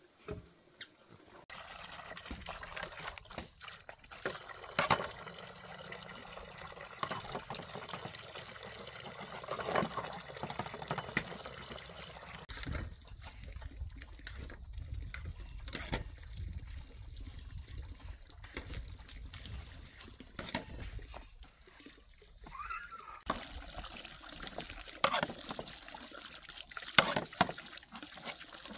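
Water splashing and trickling, with scattered sharp clinks and knocks of pans and dishes being washed in a basin; a low rumble runs through the middle stretch.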